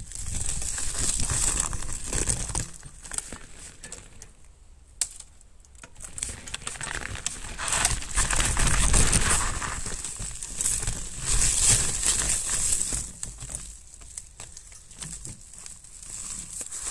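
Mountain bike tyres crunching and crackling over snow, rising and falling in uneven surges, loudest from about eight seconds in.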